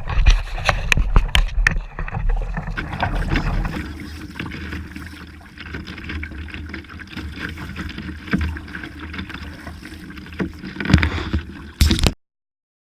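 Wind buffeting the microphone on a sailing kayak, with water noise and scattered knocks against the hull. The wind rumble is heavy for the first few seconds, then eases. Near the end the sound cuts off abruptly.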